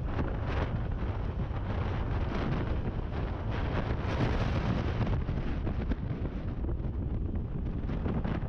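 Wind buffeting the microphone of a moving motorcycle, steady throughout, with engine and road noise underneath.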